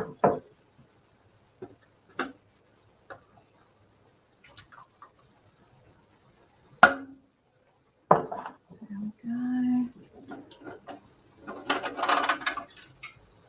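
Glass canning jars and metal jar-lifter tongs clinking and knocking as hot pint jars are lifted out of a pressure canner and set down: scattered light clicks, a sharper clink about seven seconds in and another knock about a second later.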